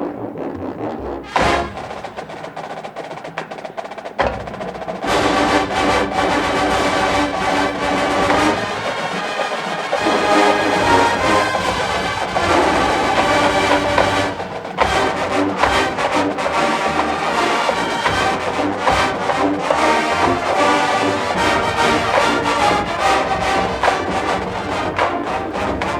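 College marching band playing: a few seconds of drums and percussion strokes, then the full band with brass comes in loudly about five seconds in and plays on.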